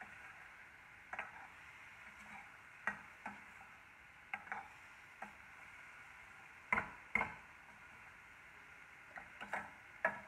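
Slotted metal spatula scraping and clinking against a stainless-steel pan as chopped onions and tomatoes are stirred: irregular sharp clinks, the loudest two about seven seconds in and a quick cluster near the end, over a faint steady sizzle of the frying.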